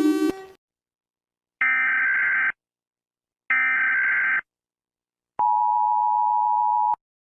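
Emergency Alert System tones: two buzzy data bursts of about a second each, like the SAME header, then a steady dual-tone attention signal that lasts about a second and a half and cuts off suddenly. Just before the bursts, the tail of a falling horn-like tone dies away about half a second in.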